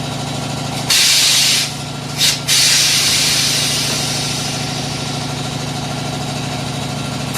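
Compressed air hissing as a tyre on a tyre changer is inflated to seat its bead: two short blasts about a second in, then a longer blast that slowly fades. A steady machine hum runs underneath and cuts off at the end.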